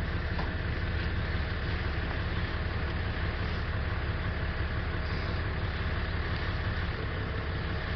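Steady roar of a gas preheating torch flame heating the rail ends inside a thermite welding mould, an even rumble that runs without a break.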